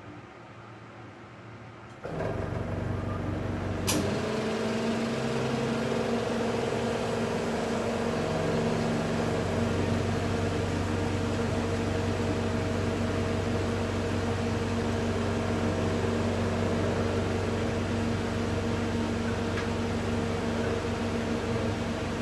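Melag Vacuclav 31B autoclave's vacuum pump starting about two seconds in and running with a steady hum, with a sharp click about two seconds later: the evacuation (pre-vacuum) stage of a test cycle.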